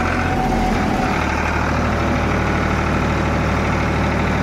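Farmtrac 50 tractor's three-cylinder diesel engine running steadily at about 1500 rpm with no load. Its note settles about a second in after the hand throttle is set, then holds even.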